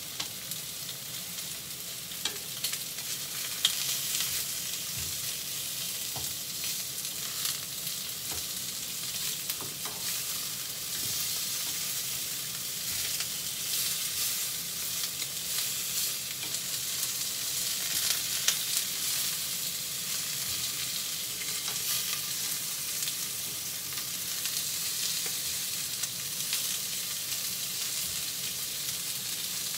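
Chunks of pork cartilage sizzling steadily as they sear in a frying pan, with a few sharp clicks as long cooking chopsticks turn the pieces against the pan.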